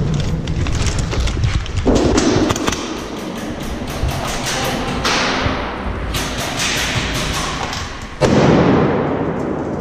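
Repeated thuds and rapid sharp knocks. A sudden loud surge of noise comes about eight seconds in.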